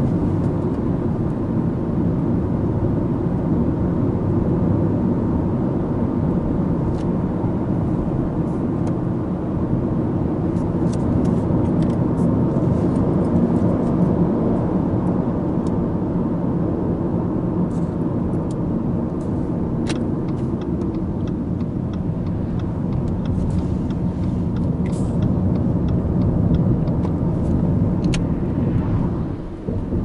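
Steady cabin noise of a Subaru Impreza Sport 1.6i-L (FB16 1.6-litre flat-four, Lineartronic CVT) cruising on the open road: a low rumble of tyres and engine heard from inside the car, with scattered faint ticks over it and a brief dip in level near the end.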